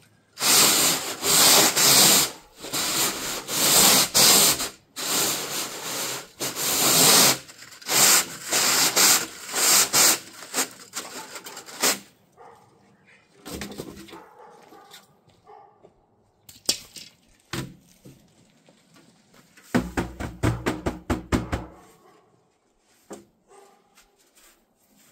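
Chimney sweep brush scraping up and down inside a chimney pipe in loud rhythmic strokes, about one a second. The strokes grow quieter about halfway through, and a quick rattling run comes around twenty seconds in.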